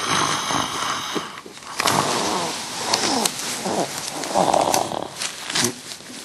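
Snoring: a few rasping breaths in a row, each lasting a second or two, with short pauses between them.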